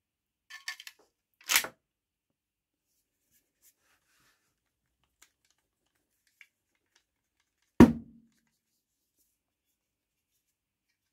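Handling of a restored Mauser K98 bayonet and its steel scabbard: a few light clicks, then a short sharp metal sound about one and a half seconds in. Faint ticks follow, then a heavier metal clunk with a brief low ring near eight seconds, the loudest sound.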